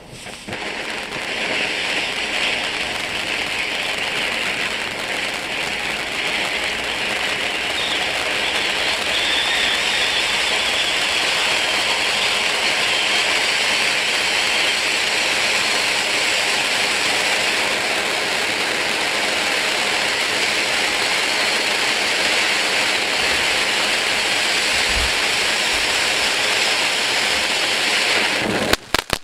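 8-inch conic fountain firework burning: a loud, steady hiss of spraying sparks that builds up within the first second and holds. About a second before the end it breaks into sharp crackling pops.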